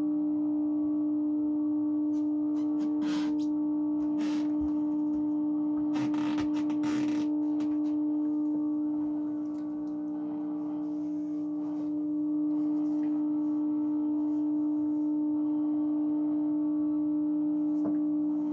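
A 1949 Motorola VT73 television gives out a steady low tone through its speaker while it is fed a test signal. A few brief rustles and clicks come a few seconds in.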